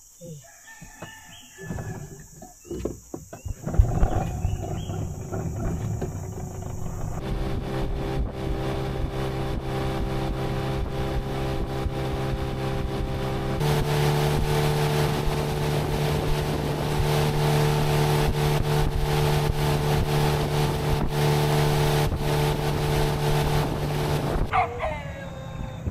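Outboard motor pushing a wooden longboat along at speed, running steadily with water rushing past the hull. It comes in after a few seconds of scattered knocks, its note jumps abruptly twice, and it drops away near the end.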